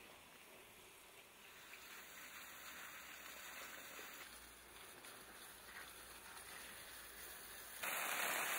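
A faint steady hiss, then about eight seconds in a garden hose's spray starts up suddenly, hitting flowers and leaves with a much louder, steady hiss.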